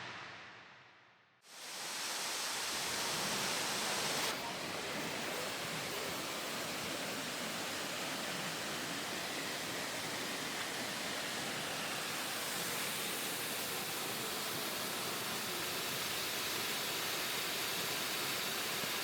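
Steady rushing of a waterfall, starting about a second and a half in, just after the tail of electronic music fades out.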